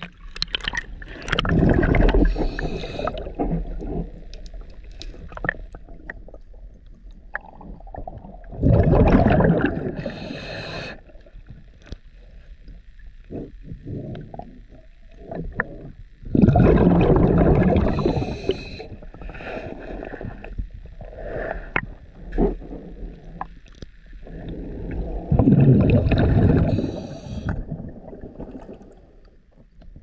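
Scuba diver breathing underwater through a regulator: a loud burst of exhaled bubbles four times, about every eight seconds, with quieter water and bubble noise between.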